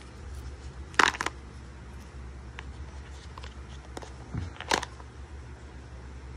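Thin plastic protective film crinkling as it is handled and peeled from an AirPods Pro charging case, in two short bursts about a second in and near five seconds in, with a few light ticks between.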